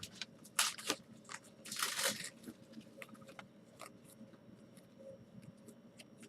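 Trading cards being handled: two short rustles, about half a second in and about two seconds in, followed by faint light ticks and scrapes.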